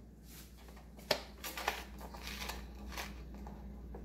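Hands rolling a filled crepe on a plastic plate: faint rustling with a few sharp taps, the clearest about a second in, over a steady low hum.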